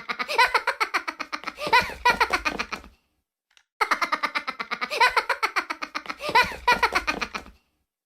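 High-pitched, rapid staccato laughter, the same burst of about four seconds repeated twice with a short pause between, as if looped.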